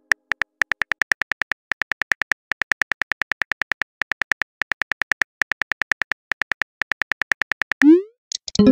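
Simulated phone keyboard clicks, one for each letter typed, about seven or eight a second with a short high tick in each. Near the end a rising swoosh as the message is sent, then a short pop.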